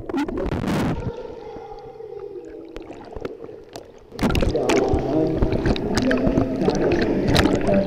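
Pool water heard through a waterproof camera's microphone: muffled underwater churning and gurgling for the first few seconds. About four seconds in, the microphone comes up at the surface, and loud splashing and sloshing of pool waves takes over.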